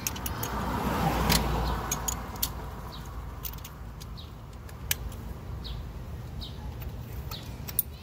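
Scattered sharp metallic clicks and clinks of a ratchet and spark-plug socket being handled, over a steady low background hum, with a car passing by, swelling about a second in, and a few faint high chirps.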